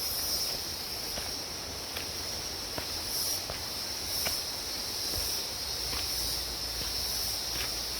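Steady high-pitched chirring of insects in tropical forest, with footsteps on a dirt path at about one step a second.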